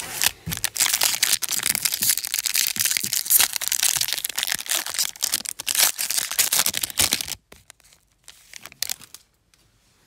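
Silver wrapper of a 2021 Topps Series 1 jumbo baseball card pack being torn open and crinkled as the cards are pulled out. The crinkling stops about seven seconds in, leaving a few faint rustles.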